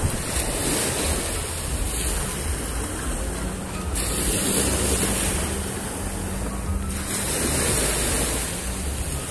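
Small sea waves washing and breaking onto a sandy beach, swelling twice, with wind buffeting the microphone as a low rumble.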